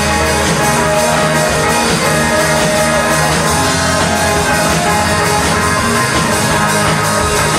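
Rock band playing live with guitars, loud and dense.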